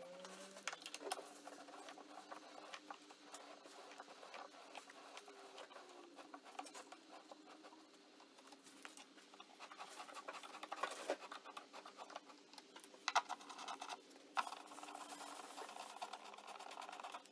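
Faint scratchy clicking of long metal screws being turned by hand and with an Allen key into the pre-drilled holes of a flat-pack shelf unit's panels, with a few sharper clicks later on.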